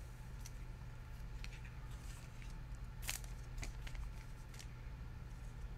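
A few faint clicks and rustles of small objects being handled at a table, the sharpest about three seconds in, over a steady low hum.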